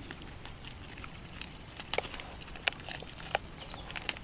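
Young wild boars feeding and moving about on the ground, heard as irregular sharp crunches and clicks. The loudest come about two seconds in and twice more before the end.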